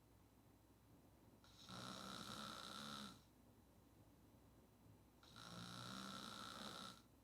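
A woman snoring with her mouth open: two snores, each about a second and a half long, with quiet breaths in between.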